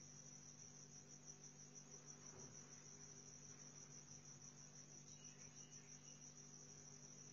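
Near silence: a faint, steady high-pitched trill with a low steady hum underneath.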